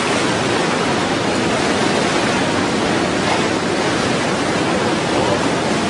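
Steady rushing of the Ganga in heavy flood, its fast muddy current surging past.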